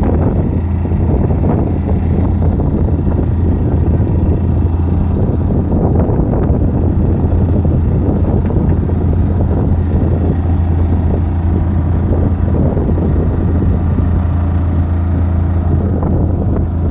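Fishing boat's engine running with a steady low hum, mixed with the rushing of a strong wind.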